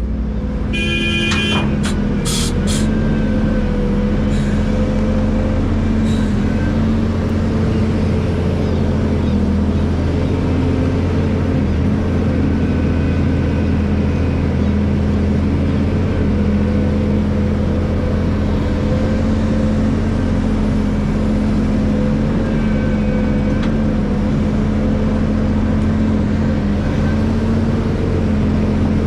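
Hydraulic excavator's diesel engine running steadily at working revs, with a faint whine that wavers slightly in pitch. A brief clatter of clicks and a short high tone come about a second in.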